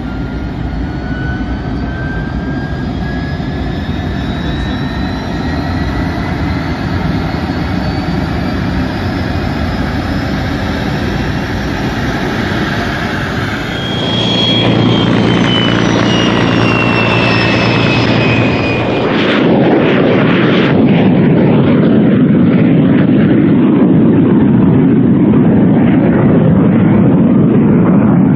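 MiG-17's turbojet engine running as the jet taxis, with a whine that rises steadily. About halfway through the sound jumps to a louder jet roar with a falling whine, and it swells again a few seconds later, the jet now far off on the runway.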